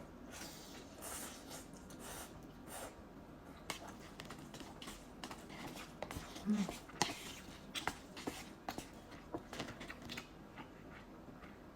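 Close-miked mouth sounds of a person eating spicy instant ramen noodles: irregular wet clicks and smacks of chewing, coming every fraction of a second.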